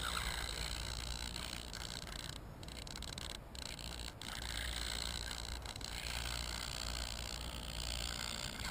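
Wind buffeting the microphone of a drone-mounted action camera: a steady low rumble under a faint hiss.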